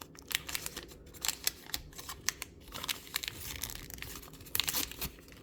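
Plastic wrapping of a Mini Brands toy being crinkled and torn open by hand: a quick, irregular string of sharp crackles.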